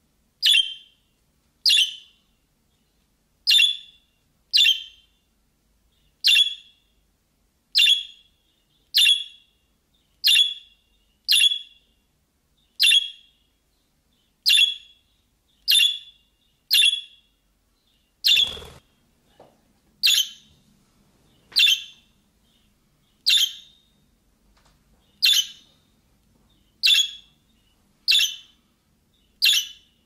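Budgerigar giving the same short, sharp chirp call over and over, one every second or two. One call about halfway through comes with a low thud.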